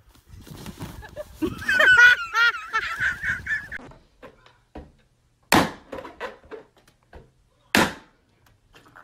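A high, wavering, honk-like squeal lasting about two seconds. Then come two sharp pops about two seconds apart: balloons bursting.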